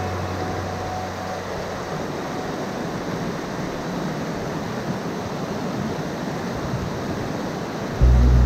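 Mountain stream rushing over rocks, a steady hiss of water. Background music fades out in the first second and comes back in loudly near the end.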